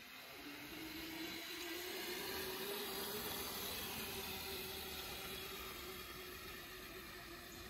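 Razor electric mini dirt bike running, its motor whining in one tone that rises in pitch over the first couple of seconds as it picks up speed, then holds steady over an even hiss.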